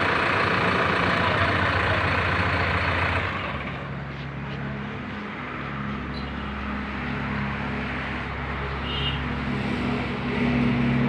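JCB 3DX backhoe loader's diesel engine running with a steady low hum. For the first three seconds it is louder and hissier, then it settles to a quieter, even hum.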